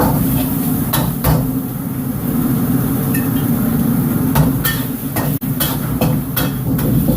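Metal ladle clanking against a wok, about eight sharp strikes scattered through, over the steady low roar of a wok burner.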